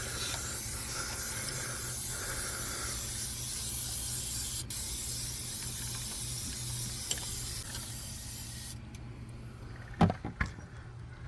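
Fluid Film rust inhibitor spraying in one long continuous hiss, with a split-second break about halfway, stopping about nine seconds in. It is soaking a rusty inner wheel-arch area in an oily coating to keep the rust from spreading. A sharp knock comes about a second after the spraying stops.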